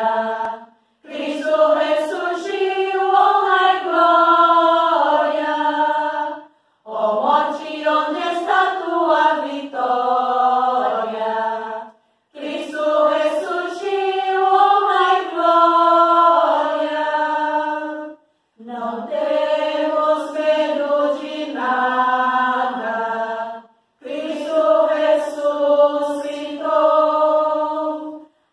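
A small group of women singing a Portuguese Easter hymn together, unaccompanied, in five phrases of about five to six seconds each with short silent breaths between them.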